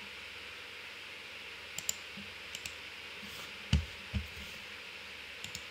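Computer mouse clicking a few times, some clicks in quick pairs, with two louder dull thumps about four seconds in, over a steady faint hiss.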